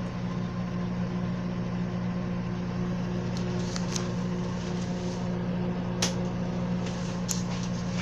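Microwave oven running, a steady electrical hum with its turntable turning, broken by a few short sharp clicks about four, six and seven seconds in.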